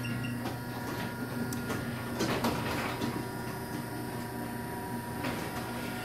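Electric garage door opener running steadily as it lowers the sectional door, with a few clicks along the way. The door is closing normally, without bouncing.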